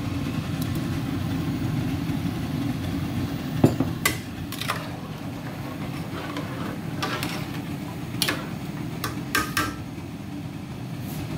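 Long metal spoon knocking and clinking against a metal cooking pot while rice is stirred into boiling broth: a handful of sharp clinks starting about three and a half seconds in, over a steady low rumble.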